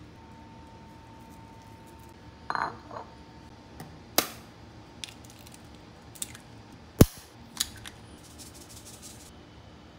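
Eggs being cracked against the rim of a ceramic bowl: a series of sharp knocks, the loudest about seven seconds in, then a brief soft hiss as the shell is pulled apart and the egg drops in.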